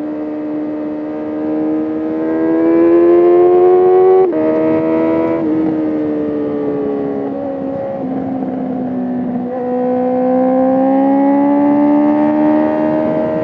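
Sport motorcycle engine under hard acceleration, its pitch climbing until a sharp drop at an upshift about four seconds in. The revs then fall away for a few seconds and climb again from about nine seconds in.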